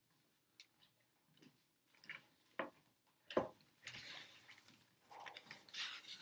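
A hardcover picture book being handled: several light taps and knocks, the loudest about three and a half seconds in as it is set down on a wooden book stand, then paper rustling as a page is turned near the end.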